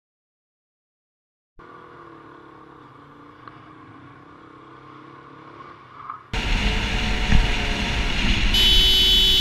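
Silence, then a motorcycle's engine running quietly as it rides. About six seconds in, a much louder ride follows, with engine and wind noise. Near the end a horn sounds for about a second.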